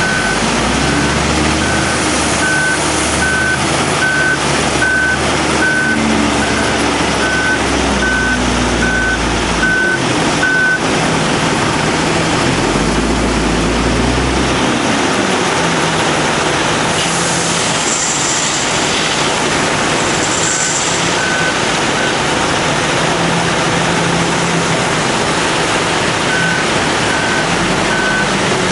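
Komatsu WA500-6 wheel loader's diesel engine revving up and down as it works, with its reversing alarm beeping a little more than once a second. The beeping stops about a third of the way through and comes back briefly twice near the end.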